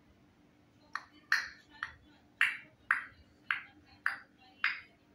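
African grey parrot making a run of sharp tongue clicks, eight in all at about two a second, starting about a second in.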